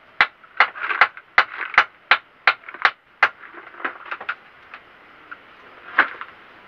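Hammer blows on a bed frame under repair: sharp knocks about two or three a second, growing fainter and fewer after about three seconds, with one louder knock near the end.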